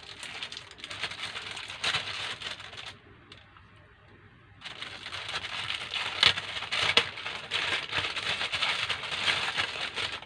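Packaging crinkling and rustling as it is opened and handled, with a brief lull about three seconds in.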